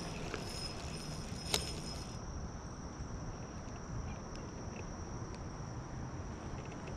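Insects buzzing in a steady, high-pitched drone, with one sharp click about one and a half seconds in.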